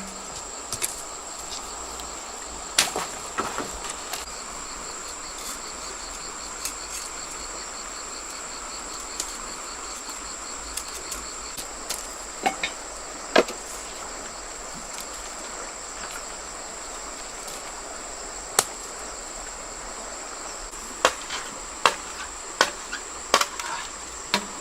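Insects buzzing steadily in a high, continuous tone, with a rapid pulsing chirp running for several seconds in the first half. Scattered sharp knocks sound over it, coming closer together near the end.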